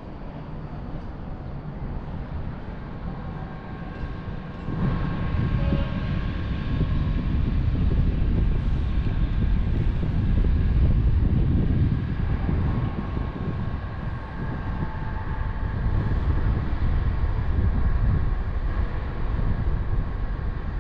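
Fairground thrill ride running: a steady, noisy rumble with a faint machine whine above it, louder from about five seconds in.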